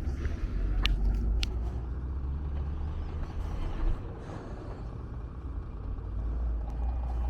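Motor traffic running along a city road, a steady low rumble of engines and tyres, with a few sharp clicks or knocks about a second in.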